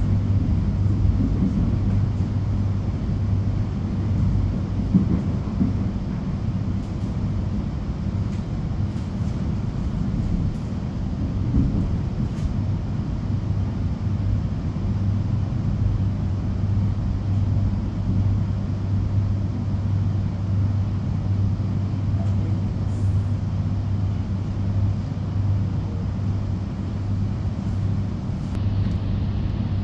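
Steady running noise heard from inside a moving suburban train, with a constant low hum under it.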